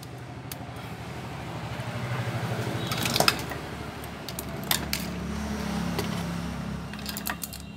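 Light clicks and taps of a bare phone circuit board and its charger plug being handled on a rubber work mat, over a low droning hum that swells to its loudest in the middle and then eases off.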